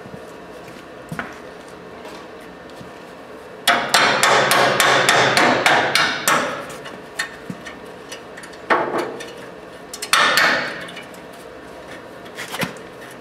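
Metal clattering: a quick run of sharp clanks and rattles for about two and a half seconds, then shorter rattles and a few single knocks, as the steel wing clamp and safety pin on a Western MVP3 V-plow are worked by hand.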